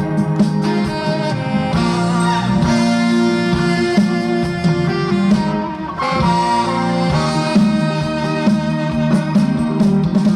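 Instrumental break of a trot song, the band accompaniment playing on with a steady beat and no vocal.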